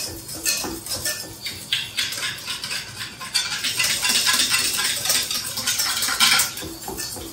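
Wire balloon whisk beating egg-and-milk crème anglaise in a stainless steel pan on the heat, its wires clattering rapidly against the pan. The strokes grow faster and louder from about three seconds in until about six and a half.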